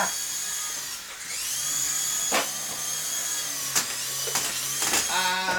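Small electric RC helicopter with gyroscope in flight: its rotor motors whine steadily, dip about a second in and spin back up. A few sharp knocks sound during the flight.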